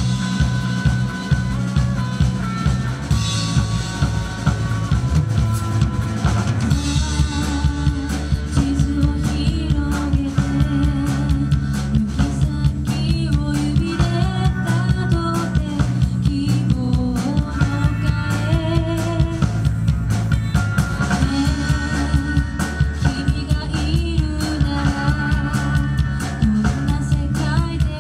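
Live pop-rock band playing a song: drum kit, electric bass and guitars, with a woman singing the lead vocal.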